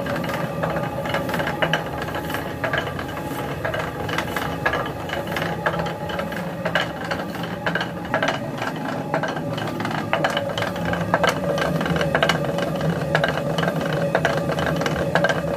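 Stone grain mill running: the turning millstone gives a steady hum while the wooden feed chute under the grain hopper rattles and clacks irregularly against it, several knocks a second.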